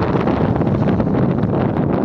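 Strong wind buffeting the camera's microphone, a steady rough rumble with irregular gusts.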